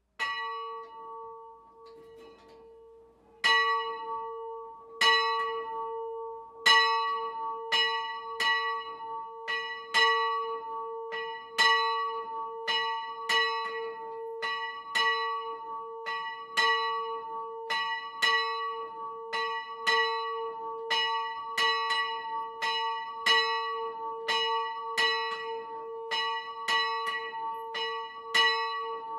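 Small bronze swinging church bell, about 44 kg and 405 mm across, with its strike note on B (h²). It is rung up: a first clapper strike, a pause of about three seconds, a few slow strikes, then steady ringing at about three strikes every two seconds, each strike ringing on under the next.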